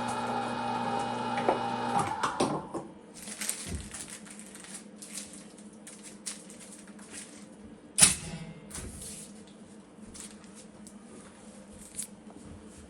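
Cabela's Carnivore electric meat grinder running with a steady hum, then switched off about two seconds in and winding down. Scattered clicks and knocks follow, with one sharp knock near the middle.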